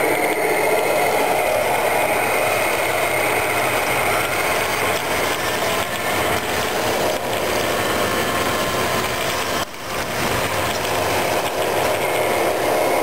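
Radio-controlled model truck driving on asphalt: its motor and gears run steadily, with a brief drop in level about ten seconds in.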